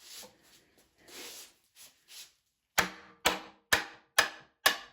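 A hammer striking the wooden toolbox being taken apart: five sharp blows about two a second, each with a short ring, starting a little under three seconds in, after some soft scraping and handling sounds.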